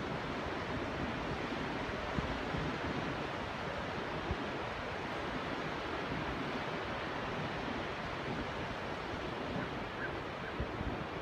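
Small waves breaking and washing up a sandy beach in a steady surf hiss, with wind rumbling on the microphone.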